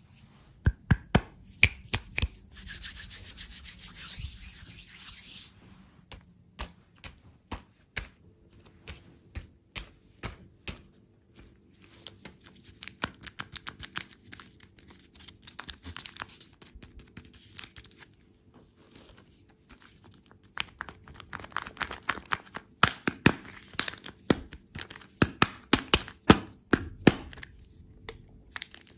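Close-miked ASMR handling of candy and desserts: a long run of sharp clicks, taps and crackles, with a stretch of rustling about three seconds in, and the taps coming thick and fast again near the end.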